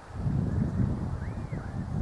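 Wind buffeting the microphone as a gusty low rumble, with two faint arched bird chirps about midway through.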